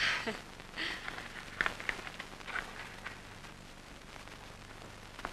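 Steady hiss and faint crackle of an old film soundtrack, with a few soft short noises in the first three seconds.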